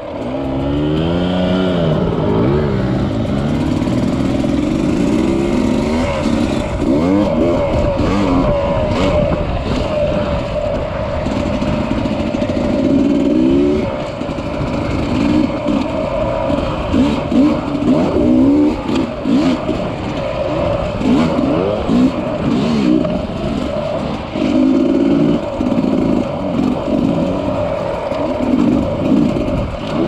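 Dirt bike engine revving up and down as the throttle is opened and closed over a rough trail, over a steady rush of wind noise. Scattered sharp clicks and clatters, like stones kicked up, come through in the middle stretch.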